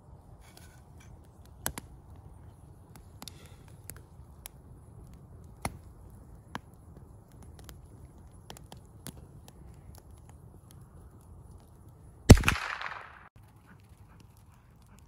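Wood fire crackling, with a few sharp pops spread over the first several seconds. One much louder sharp crack about twelve seconds in, with a short noisy tail that fades in under a second.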